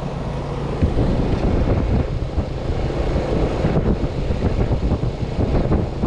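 Running air-conditioning condenser: a steady low compressor and fan hum. From about a second in, the fan's upward discharge air buffets the microphone as a loud, uneven rumble.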